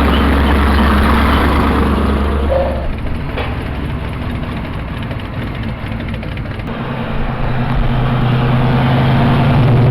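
Car engine running: a steady low drone for the first few seconds, then a rougher stretch, then a steadier, higher drone that grows louder over the last few seconds and cuts off suddenly.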